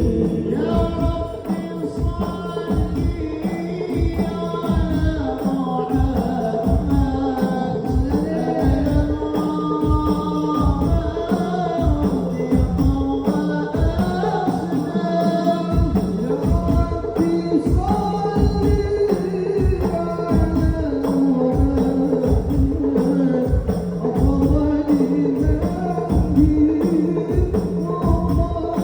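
A man sings an Arabic sholawat with a long, ornamented melody over hand drums beating a steady rhythm, about two strokes a second.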